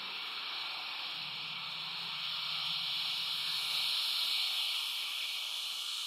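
Barn owl hissing: one long, unbroken, breathy hiss that grows louder past the middle.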